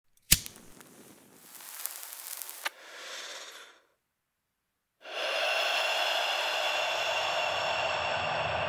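A sharp click, then a hissing breath drawn in with a second click, then a softer breath out. After about a second of silence, a dense electronic drone of many held tones comes in suddenly and stays steady.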